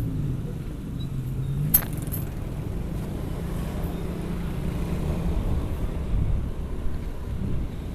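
Motorcycle engine running at a steady cruising speed while riding, with wind and road rumble; a sharp click about two seconds in.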